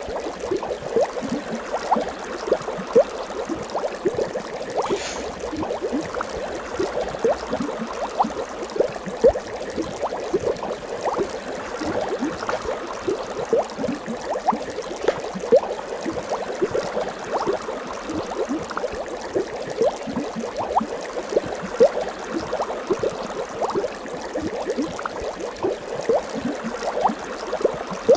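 Water bubbling steadily, a continuous stream of many small bubbles gurgling.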